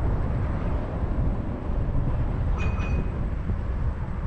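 Steady low rumble of a moving vehicle, with a short high-pitched ring about two and a half seconds in.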